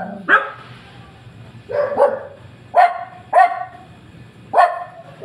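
A dog barking: about five short, loud barks at uneven intervals, two of them close together near the middle.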